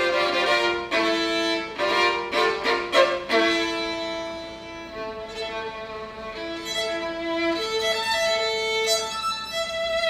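Orchestra violin section playing: several short, accented bow strokes in the first three seconds, then long held notes that step from pitch to pitch.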